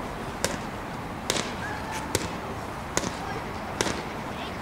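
Boxing gloves smacking into handheld focus mitts during pad work: six sharp smacks spaced about a second apart, two of them close together about two seconds in.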